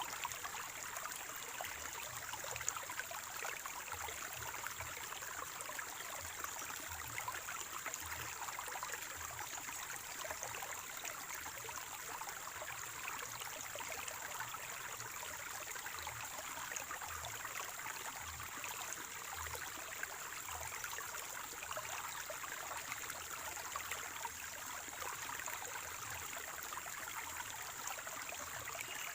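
Water of a small spring-fed stream gurgling and trickling steadily, with no let-up.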